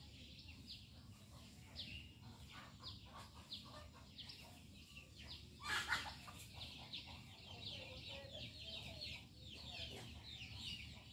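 Small birds chirping: short, quick downward chirps a couple of times a second, with one louder, sharper call about six seconds in and busier chirping after it.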